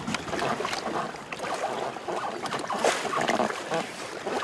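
Wind on the microphone and choppy waves slapping against a small boat's hull, with scattered short splashes and knocks.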